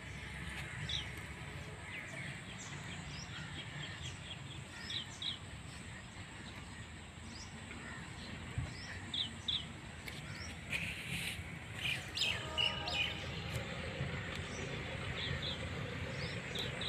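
Small birds chirping in short repeated calls, often in pairs, over steady low outdoor background noise, with a brief pitched sound about twelve seconds in.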